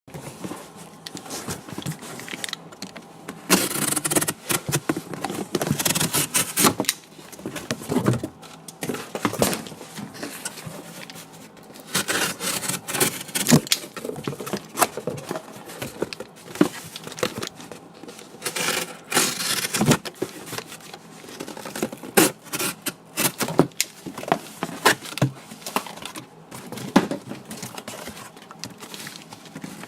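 Cardboard being cut: irregular scraping strokes and crackling clicks, with a few longer drawn-out cuts.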